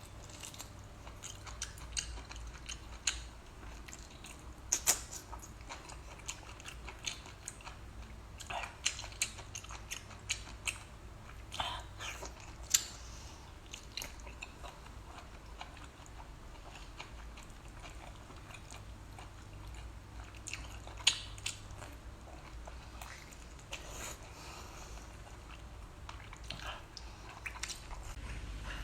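A person eating close to the microphone: chewing and biting, with irregular sharp crunches and clicks.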